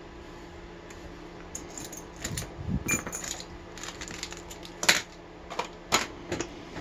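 Small metal objects clinking and tapping at irregular intervals: lockpicking tools and the padlock being handled. The two sharpest clinks come near the end.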